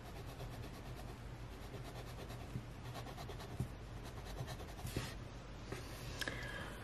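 Kaweco AL Sport fountain pen's fine nib scratching softly across planner paper as it writes, with a few light ticks along the way.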